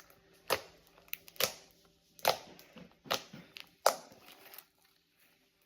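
Plastic packaging or a shopping bag crinkling and crackling as it is handled, in about five short, sharp bursts over four seconds, then quiet.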